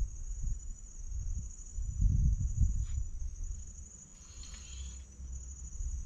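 Steady high-pitched chirring of insects, crickets or cicadas, over low rumbling handling noise. A short rustle comes near the end as the rod is lifted.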